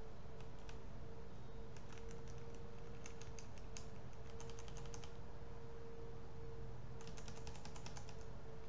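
Computer keyboard keys tapped in several short, quick runs of clicks, over a faint steady hum.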